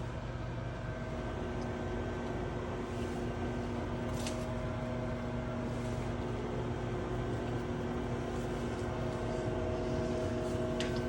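Microwave oven running, a steady hum with constant tones, heating a marshmallow s'more. Two brief clicks, about four seconds in and near the end.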